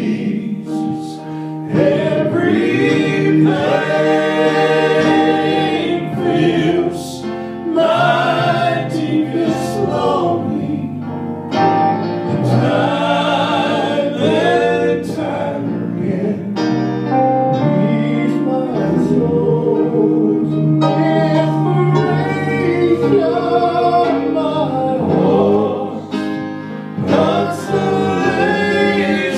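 Male gospel quartet singing in harmony, several voices holding long notes together.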